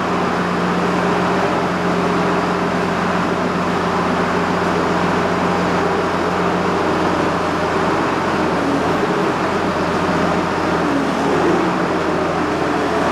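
John Deere 6068 six-cylinder diesel engine of a forwarder running steadily. The engine has blow-by and at least one dead cylinder, though it still runs fairly smoothly.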